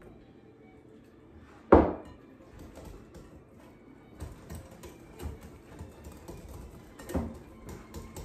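Wire whisk mixing pancake batter in a glass bowl, clicking and tapping against the glass in short irregular strokes. A single loud knock about two seconds in stands out above the rest.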